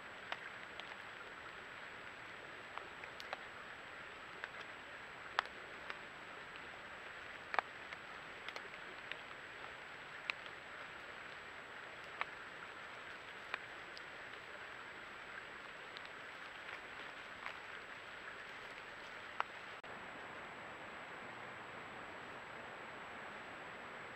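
Steady hiss of a trail camera's night-time recording with a faint high steady tone, broken by about a dozen sharp ticks at irregular intervals, the loudest about five and seven and a half seconds in.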